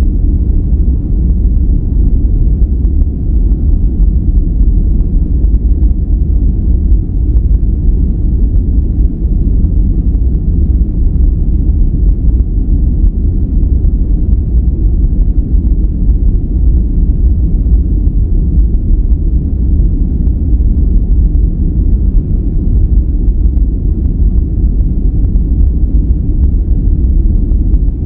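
Continuous steady noise of a relaxation noise track, deep and bass-heavy with almost no treble, unchanging throughout.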